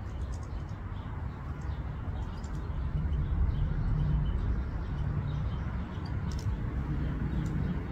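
Outdoor ambience: a steady low rumble with a few faint bird chirps, one clearer chirp about six seconds in.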